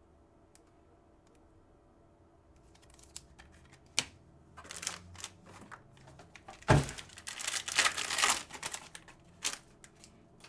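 A trading card pack's foil wrapper being torn open and crinkled by hand. It starts a few seconds in, with sharp clicks and one louder thump about two-thirds through, followed by more crinkling.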